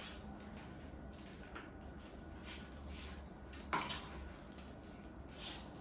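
Faint rustling and handling noises over a low steady hum, with one sharper, louder scrape or click a little under four seconds in.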